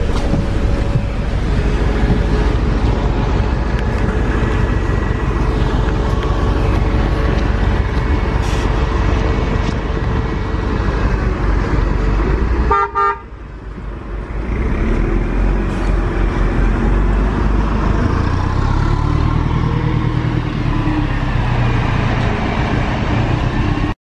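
MAZ-206 city bus running, heard from inside: a steady engine and road rumble. About halfway through a short pulsed beep sounds and the noise drops suddenly, then builds back up over a couple of seconds.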